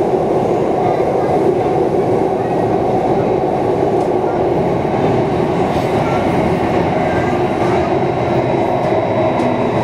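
Singapore MRT Circle Line train running through a tunnel, heard from inside the carriage: a steady, unbroken rumble with faint high whines coming and going.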